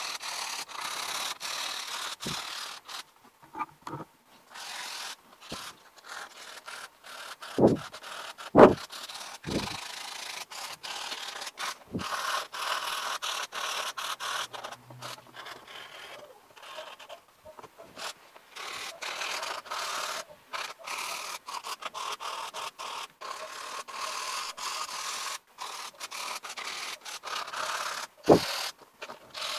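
Sponge rubbing and scrubbing over a cardboard model in short, uneven strokes, with a few dull knocks as the model is handled, the loudest about eight and a half seconds in and another near the end.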